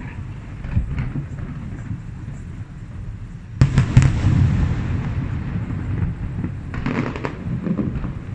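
Aerial fireworks bursting: a sudden cluster of loud bangs about three and a half seconds in, followed by a rumbling echo, then a second burst of sharp crackles near the seven-second mark.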